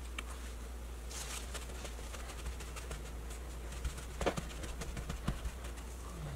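Gloved hands patting raw fish fillets with a folded paper towel: faint paper rustles and soft dabs, the sharpest about four seconds in, over a steady low hum.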